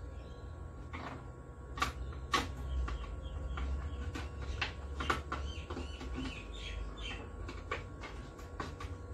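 Scattered clicks and knocks of hands handling the opened flat-screen TV's plastic housing, metal frame, boards and cables, over a low rumble.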